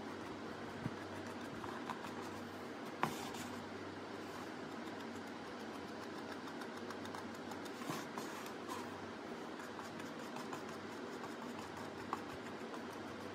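Steady background hiss with a low hum that fades about two-thirds of the way through, and a few small, sharp taps from handling the brush, paint pots and mask, the loudest about three seconds in.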